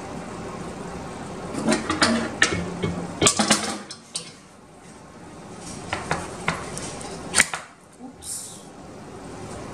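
Kitchen clatter of metal utensils and tin cans: a metal mesh sieve set into a pot and cans handled and put down on the countertop, sharp clinks and knocks in two bunches, about two seconds in and again around six to seven seconds, with a short scrape near the end.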